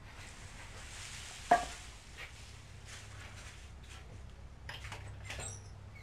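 A single sharp knock with a brief ring about a second and a half in, over faint scattered ticks; a short high chirp near the end.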